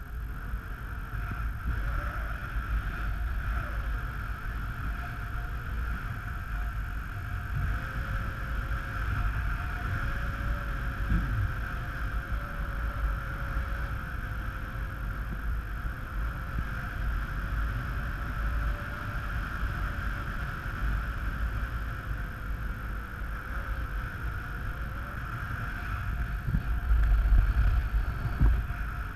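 Wind rushing over the camera's microphone in paraglider flight: a steady rumble with a high hiss, buffeting louder near the end as the glider turns in close to the dune.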